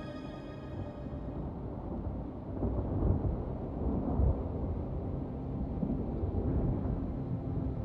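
Low rolling rumble of thunder, building louder from about two seconds in, as sustained music notes fade out in the first second.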